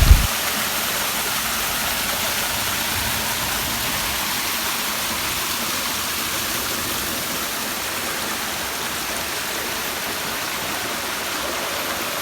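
Waterfall: a steady rush of falling water, even throughout.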